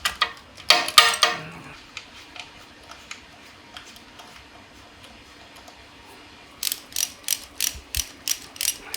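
Ratchet wrench clicking, with a few sharp metal clicks at the start. Near the end it settles into an even run of about four clicks a second.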